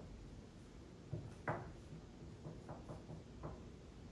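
Several light knocks, irregularly spaced, over quiet room tone; the loudest comes about one and a half seconds in.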